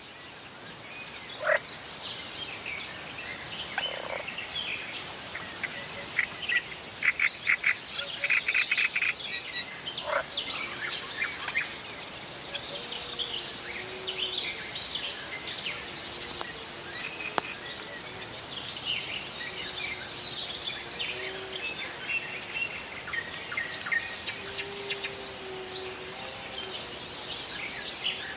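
Several wild birds singing and calling over one another with chirps and whistles, including a fast run of repeated notes about eight seconds in. From about halfway, short low calls join in underneath.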